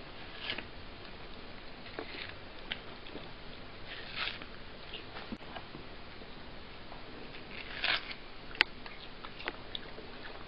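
A cat biting and chewing a slice of watermelon: irregular soft bites, smacks and clicks, with sharper ones about four and eight seconds in, over a steady hiss.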